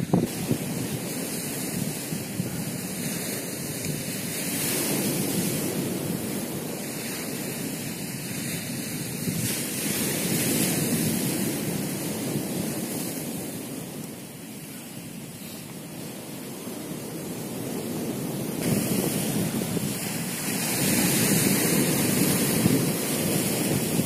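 Sea surf breaking on a shingle beach, swelling and fading in slow surges every several seconds, with wind buffeting the microphone.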